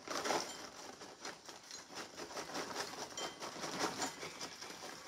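Paper microwave popcorn bag crinkling and rustling as popped popcorn is shaken out of it, with many small, irregular ticks of popcorn dropping into a ceramic bowl.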